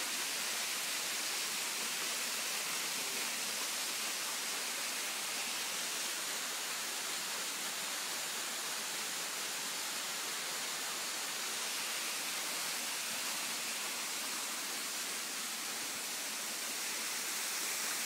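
Small waterfall rushing steadily over rocks into a creek, an even hiss of falling water.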